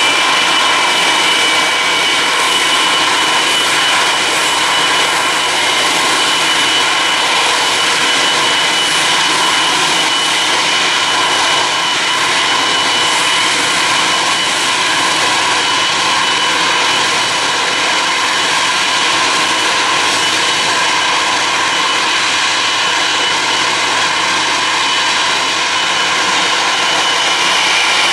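Jet engines of an Etihad Airbus A321-231, its IAE V2500 turbofans running at taxi power as it rolls along the taxiway: a steady rush with a high whine held throughout.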